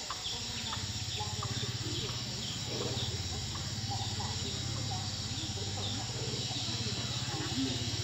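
Engine of a two-wheel walk-behind tractor running steadily while it tills soil, a low even hum. Small high chirps repeat about twice a second over it, with scattered bird calls.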